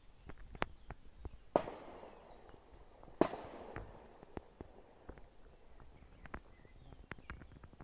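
Leaves and twigs rustling and crackling as someone moves through dense mulberry foliage, with scattered sharp snaps and two louder sudden rustles about one and a half and three seconds in, each fading over about a second.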